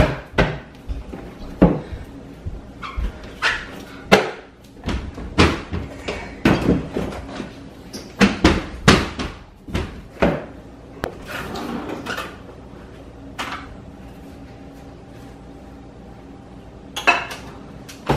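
Kitchenware clattering as flour is measured into a mixing bowl: irregular knocks of bowls and utensils on the counter, with a soft scraping rustle about eleven seconds in. It goes quieter after that, with two more knocks near the end.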